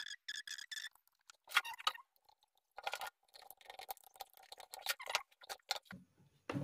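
Light clicks and taps of small metal and plastic parts being handled, with a screwdriver, as power amplifier ICs are fitted to an amplifier board's heatsink. A quick run of clicks comes first, then scattered louder taps and scrapes.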